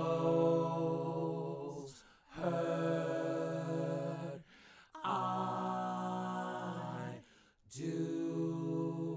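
A sustained sung vocal sample triggered from a pad of a Roland Verselab MV-1 groovebox: one held note sounding four times, about two seconds each, with short breaks between.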